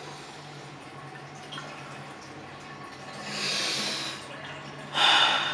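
A man breathing heavily: one long, noisy breath about three seconds in, then a short, loud burst of breath near the end as he begins to cough. A faint low hum sits underneath.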